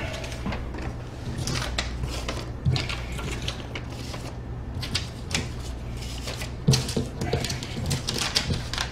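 Paper and plastic litter rustling and clicking irregularly as it is picked up off a corridor floor, with a few soft knocks, over a steady low hum.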